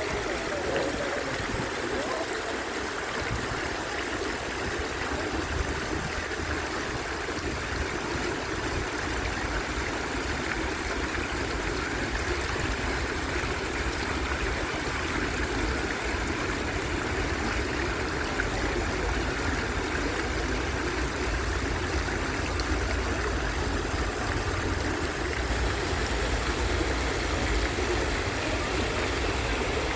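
Water fountain splashing steadily, a continuous rush of falling water with a low rumble underneath.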